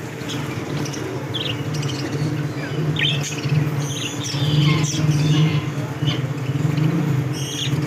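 Small caged birds chirping and squawking in short, scattered calls, over a steady low hum.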